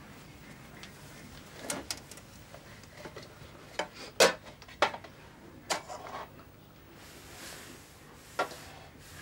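Plates and bowls being set down on the floor and knocking together: a string of sharp clinks and knocks, loudest about four seconds in.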